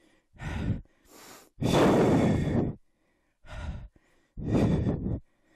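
A man breathing hard with effort during a floor core exercise: about five forceful, noisy exhales, the longest and loudest one about two seconds in.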